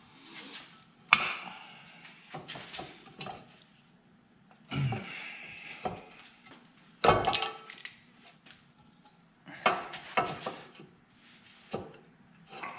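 Cast-iron turbo manifold and locking pliers being handled and shifted on a milling machine's steel table: irregular metal clanks, knocks and scrapes, with louder knocks about a second, five and seven seconds in.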